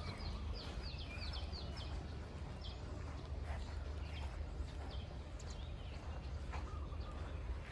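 Small birds chirping: a quick run of short, high, downward-sweeping notes in the first two seconds, then scattered single chirps, over a steady low rumble.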